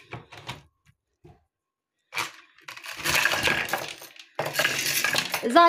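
A few light clicks, then two stretches of dense clinking and rattling of small hard household objects, the second starting near the end.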